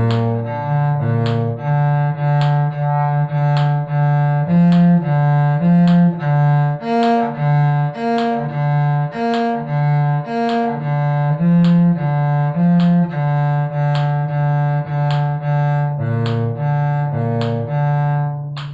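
Cello playing a B-flat major arpeggio as a string-crossing exercise, alternating each arpeggio note with the open D string in steady, evenly spaced bowed notes.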